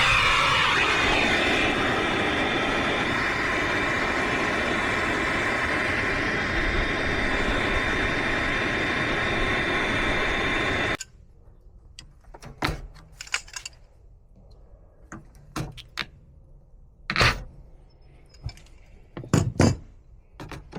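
A loud, steady motor-driven machine running with several steady tones, which cuts off abruptly about eleven seconds in. It is followed by scattered knocks and clicks of handling work.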